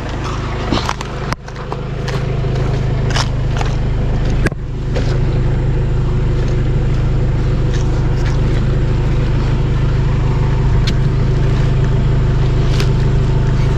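Ford pickup truck's engine idling steadily, with a few sharp knocks and thumps in the first five seconds.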